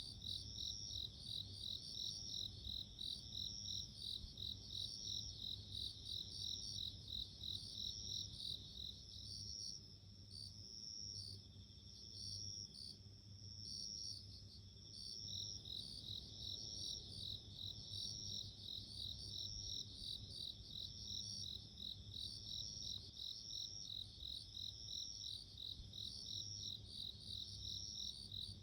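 Japanese bell crickets (suzumushi) singing: a high-pitched, ringing chirp repeated over and over at an even pace, several insects overlapping. The chorus thins and grows quieter for a few seconds in the middle, then picks up again.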